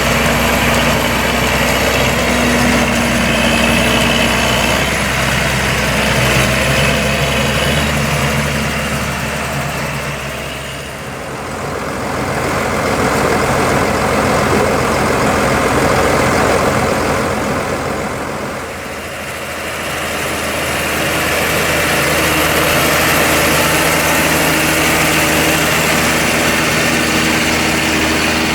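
Diesel farm tractor engine running steadily, with a drone of harvesting machinery. The sound falls away briefly twice, about a third of the way in and again past the middle.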